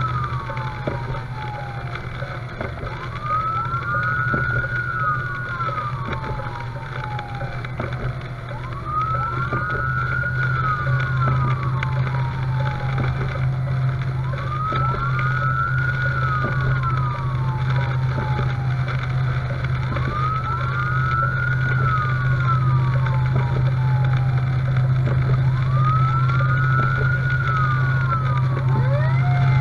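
Fire engine's siren wailing, each cycle rising, holding briefly at the top and sliding back down, about every five and a half seconds, over the steady drone of the truck's engine, heard from inside the cab. A second, higher sweep joins near the end.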